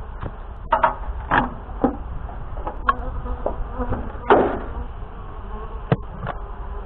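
Honeybees buzzing around an opened wooden hive while the roof is lifted off and the inner cover pried with a metal hive tool, giving several knocks and scrapes of wood and metal. The loudest scrapes come about a second and a half in and again past the middle.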